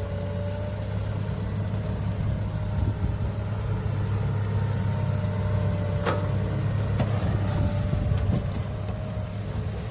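Heavy construction machine's diesel engine running steadily, with a faint higher steady tone over the low drone. Two sharp clanks come about six and seven seconds in.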